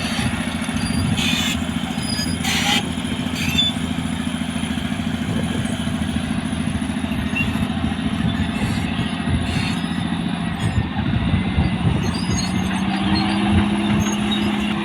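Caterpillar D6R bulldozer's diesel engine running steadily while pushing sand, with a few sharp knocks in the first few seconds. Its note rises slightly and gets stronger about twelve seconds in.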